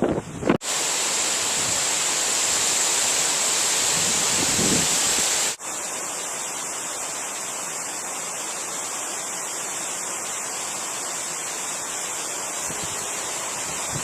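Blizzard wind blowing, heard as a loud, steady, even hiss. It drops suddenly to a slightly quieter hiss about five and a half seconds in.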